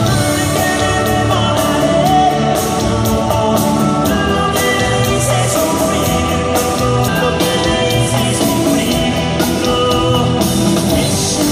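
Live band music played loud through a concert PA and heard from within the audience, with electric guitar and keyboards.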